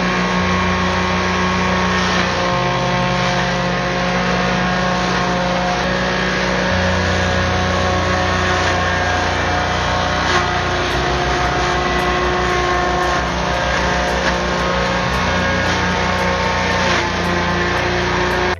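Belt-driven forage chopper running on its small gasoline engine while green forage is fed in and cut. A steady engine drone sits under a dense cutting noise, with occasional light knocks.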